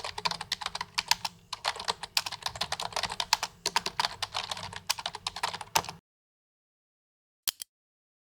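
Computer keyboard typing: quick, uneven keystrokes for about six seconds, then it stops, with one more keystroke about a second and a half later.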